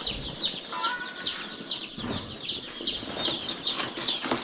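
A crowd of newly shipped baby chicks (Cornish Cross broilers and Rhode Island Reds) peeping continuously: many short, high, falling peeps overlapping several times a second. There is some rustling of the chicks and their box in the second half.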